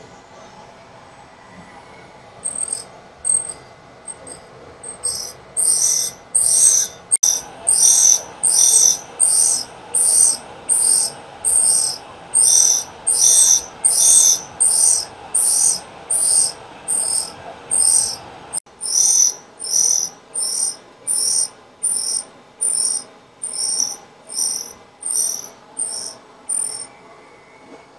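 K.O. Lee tool and cutter grinder rough-grinding a drill bit turned in a cam relieving fixture. The wheel bites the bit in short, regular hissing bursts, a bit more than one a second, starting a few seconds in, over the steady hum of the grinder's motor.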